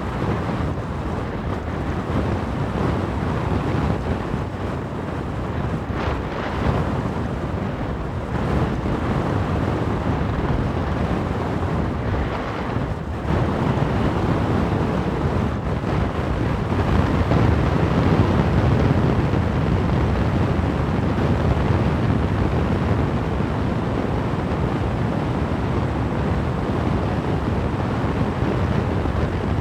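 Strong gusty wind buffeting the phone's muffled microphone on an exposed mountaintop, a constant low rumble that swells with the gusts, strongest about two-thirds of the way through.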